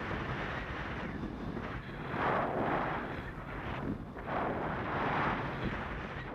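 Wind rushing over the microphone of a paraglider in flight, swelling louder twice, about two and four and a half seconds in.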